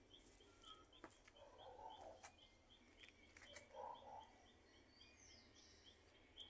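Near silence: faint outdoor background with a regular high chirp about three times a second, a few faint clicks, and brief bird chirps.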